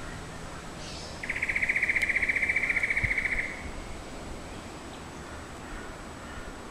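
A loud, fast, evenly pulsed buzzing rattle from a bird or insect in the trees, starting about a second in and lasting about two seconds.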